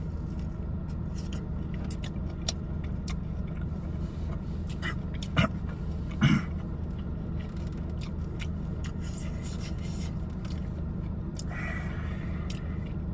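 Steady low hum inside a car cabin, with small clicks and eating noises from a man biting into a hot chicken wing. Two short, louder sounds from him about halfway through.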